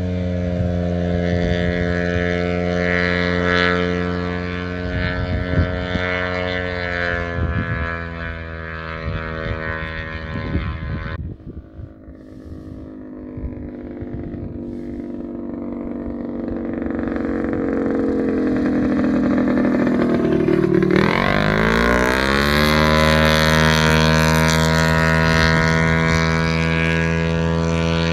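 Light propeller aircraft's piston engine running at high power as the plane takes off and climbs away, its drone sinking slightly in pitch and fading about halfway through. It then grows loud again, the pitch dipping and climbing back about two-thirds in, and holds a steady drone to the end.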